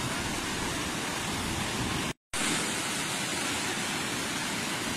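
Steady rush of river water, broken by a momentary silence about two seconds in.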